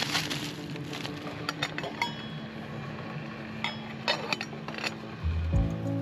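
Light metal clinks of a stainless steel cooking pot's lid and wire handle being handled on a wood stove, a few sharp taps in the middle of the clip, over a steady hiss.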